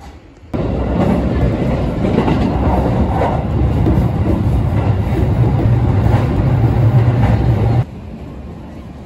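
JR 211 series electric train running, heard from inside the passenger car: a steady low hum with the clack of wheels over rail joints. It cuts off suddenly near the end to a much quieter background.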